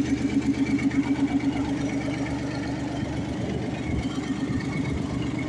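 T-150 tractor's diesel engine idling with a steady, even pulsing beat.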